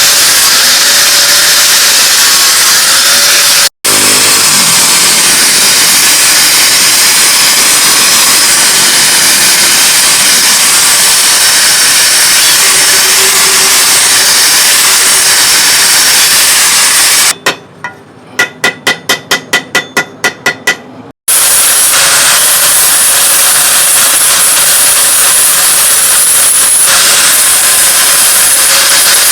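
Loud, steady mechanical rushing noise from metalworking, broken by two brief cuts. A few seconds past the middle it gives way to a quieter run of rapid, evenly spaced taps, about five a second.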